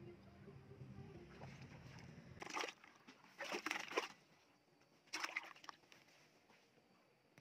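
A small fish splashing in a plastic bucket of water as it is let go: three short bursts of sloshing, about two and a half, three and a half and five seconds in.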